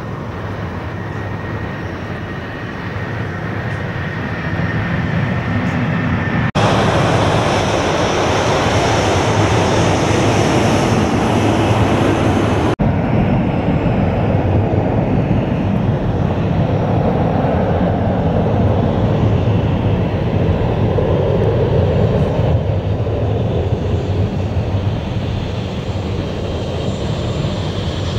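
Jet airliner engines at taxi power, a steady rushing roar that grows louder over the first few seconds. An abrupt edit switches to a brighter, louder stretch of engine noise for about six seconds in the middle, then cuts back.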